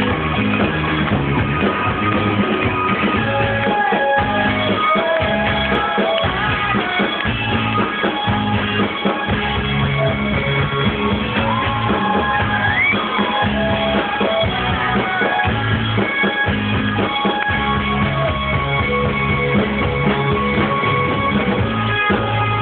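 Rock band playing live on stage, with drums and synth keyboard in a steady full-band groove, heard through a low-fidelity recording with the top end cut off.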